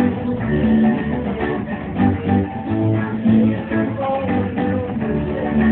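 Live band playing amplified music, with guitar to the fore over bass and a steady beat.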